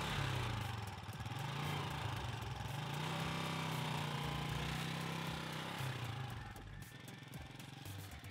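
Motorcycle engine running, its pitch rising and falling with the throttle, then dropping lower and quieter about six and a half seconds in.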